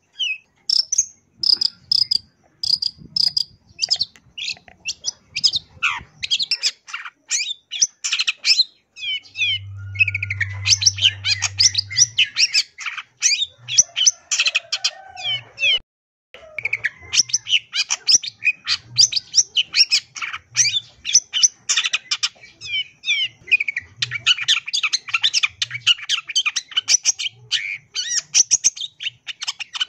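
Long-tailed shrike singing a fast, near-continuous string of chattering notes, trills and mimicked calls of other birds, with one short pause about halfway.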